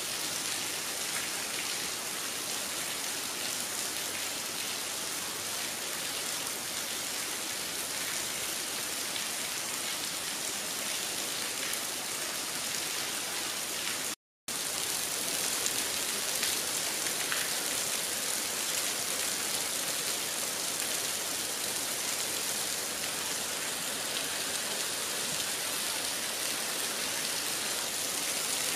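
Heavy rain falling steadily, a dense even hiss of drops. It cuts out for a split second about halfway through.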